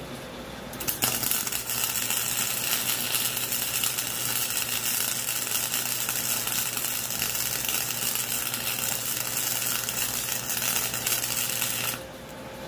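Wire-feed welder arc crackling and sizzling steadily as it welds rebar. It starts about a second in and cuts off near the end.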